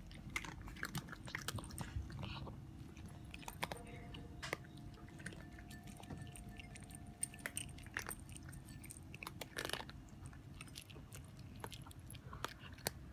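Cats chewing and crunching dry food: faint, irregular crunchy clicks.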